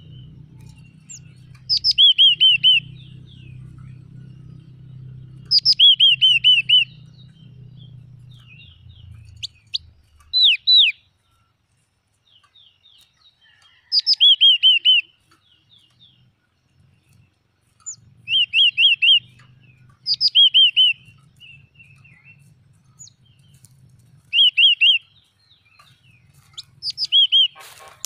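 Yellow-cheeked tit singing: short phrases of three to five quick, ringing, downward-swept notes, repeated every two to four seconds.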